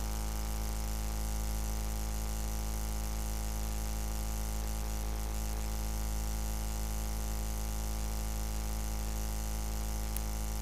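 Steady low hum and buzz, unchanging throughout.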